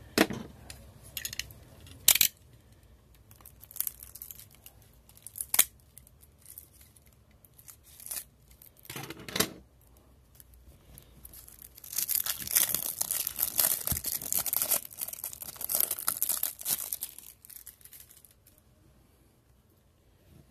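Cellophane shrink wrap being torn and peeled off a trading-card deck box. Scattered crackles and clicks come first, then a few seconds of dense crinkling as the plastic is pulled away and crumpled.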